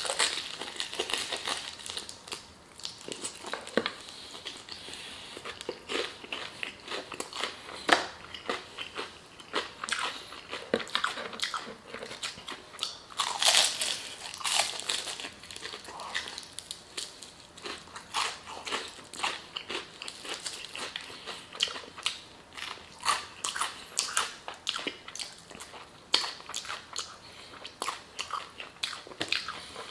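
Close-up biting and chewing of crispy fried chicken: irregular crunches of the breading with chewing between bites, a louder run of crunching about halfway through.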